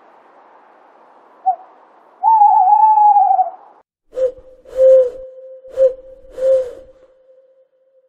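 Owl calls: a wavering, whistle-like call lasting about a second, then after a short break a series of four hoots on one steady pitch.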